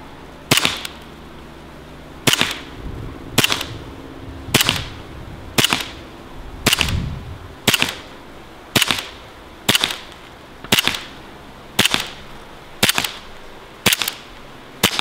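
Black Ops 1911 full-metal CO2 BB pistol firing a whole magazine: about fourteen sharp shots, roughly one a second, each one cycling the blowback slide.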